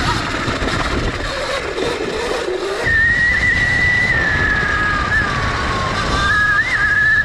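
CZEM Drill One electric dirt bike being ridden: a high motor and chain-drive whine over wind and tyre noise. The whine rises and falls with speed, jumps suddenly higher about three seconds in, sags, then climbs again near the end.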